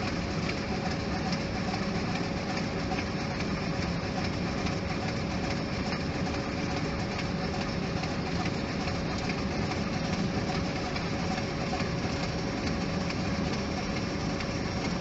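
Steady flight-deck noise of a Boeing 737 on final approach: rushing airflow and engine hum with a constant tone running through it, no change in level.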